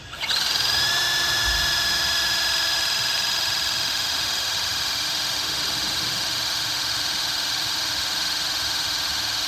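Battery-powered hydraulic crimping tool starting suddenly and running steadily, its motor and pump whining at a constant pitch as it builds pressure to compress a crimp sleeve onto MI cable. No pressure-relief pop is heard yet, so the crimp is not finished.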